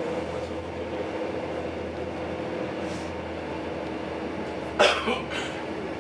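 Passenger train running, heard from inside the carriage: a steady rumble of wheels on track with a constant hum from the drive. About five seconds in, a brief sharp noise cuts in, loud then fading, with a smaller one just after.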